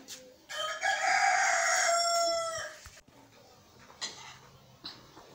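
A rooster crowing once, one long call of about two seconds that drops slightly in pitch at its end. A few faint clicks follow.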